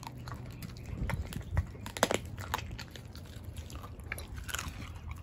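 Dog chewing and crunching a raw meaty bone, with irregular crunches from its jaws.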